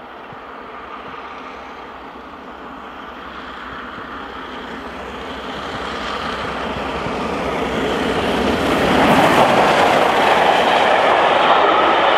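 Three-cylinder LNER A1 Pacific steam locomotive 60163 Tornado running at over 70 mph with its train, approaching and rushing past. The sound swells steadily and is loudest as the engine passes about nine seconds in, then stays loud as the coaches roll by.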